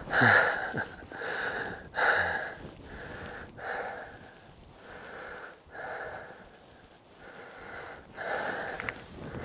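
A hiker's heavy breathing close to the microphone, a breath every second or two, out of breath from the climb to the summit. The breaths are loudest in the first couple of seconds, then ease off.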